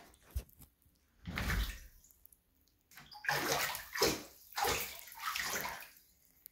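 A serval pawing and splashing in shallow bathtub water as it fishes for small live fish, in three bouts of splashing: a short one about a second in, then two longer ones from about three seconds in.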